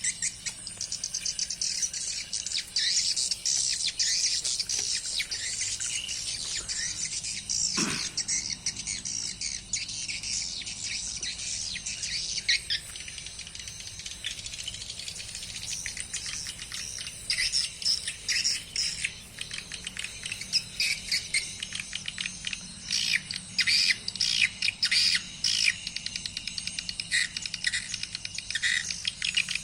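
Swiftlets chirping and twittering: a dense run of rapid high chirps and trills with no break, busier toward the end. It is the swiftlet-house call sound, the kind of twittering that the keeper takes as a sign that the call setting suits the birds.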